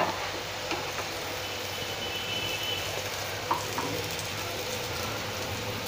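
Kothimbir vadi, coriander and gram-flour squares, sizzling steadily as they shallow-fry in a little oil in a nonstick pan. A couple of light spatula taps come as the pieces are turned over.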